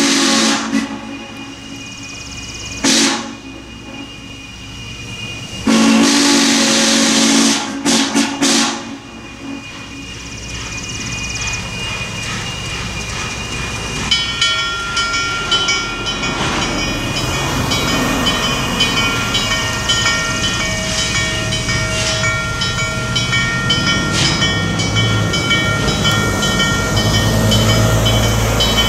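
Norfolk & Western 611's three-chime steam whistle blowing: two short blasts, then a long one about six seconds in that breaks off in short bursts. After that the rumble of the steam-hauled passenger train grows steadily louder as it runs closer, with thin, steady high tones over it from about halfway on.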